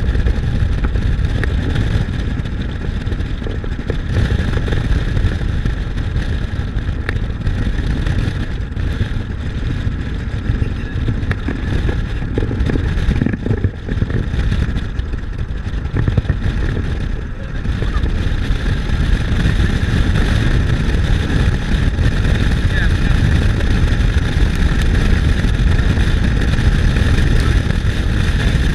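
Steady road and engine noise of a moving car, getting a little louder about two-thirds of the way through.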